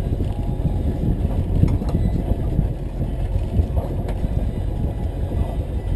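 Low, steady rumble of a charter fishing boat's engine running under way, mixed with wind buffeting the microphone.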